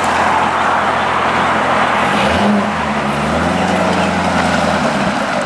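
Car engine running and road noise while driving, with the engine's pitch shifting about two seconds in.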